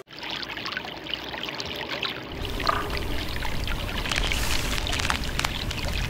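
Shallow mountain stream running fast over rocks: a steady rush of water with many small splashes. A low rumble joins in about two seconds in.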